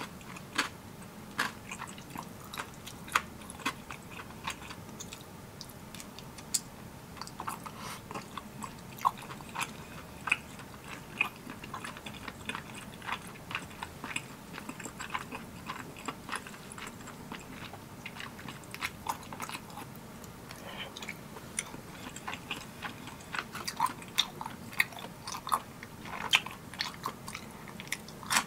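Close-miked eating of spicy tteokbokki: chewing and mouth sounds of the soft rice cakes, with many sharp, irregular clicks and smacks.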